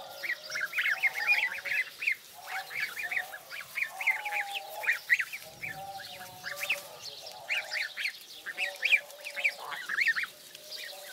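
A flock of three-week-old African goslings peeping while they feed: many short, high calls overlapping in quick succession, over a softer, lower chatter.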